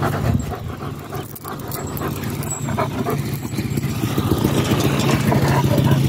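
A dog barking, over the steady hum of a motor vehicle engine that grows louder toward the end.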